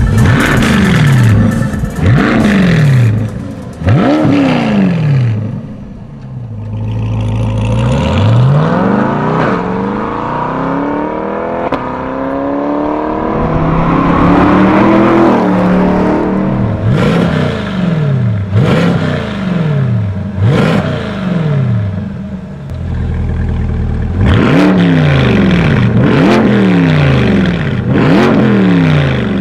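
Chevrolet Corvette C8 Stingray's LT2 V8 through a Fi valvetronic catback exhaust, with the valves open: repeated sharp revs that rise and fall back to idle. About a third of the way in comes a longer pull rising steadily in pitch as the car drives up, followed by quick free-revs about one a second, a short idle, then another run of rapid blips near the end.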